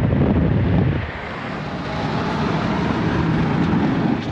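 Steady road and wind noise inside a vehicle cruising at highway speed. About a second in, the sound dips and changes character, then carries on as a steady rush.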